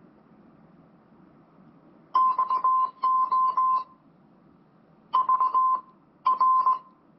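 MUZEN Wild Mini Bluetooth speaker's power-on sound: a single high electronic tone beeping in quick Morse-code-like pulses, in four short groups starting about two seconds in.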